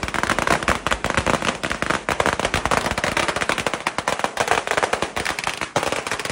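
A long string of firecrackers going off: a rapid, unbroken crackle of many sharp bangs a second.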